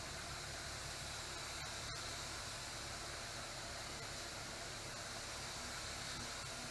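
Steady hiss of rushing air, with a single faint click about two seconds in.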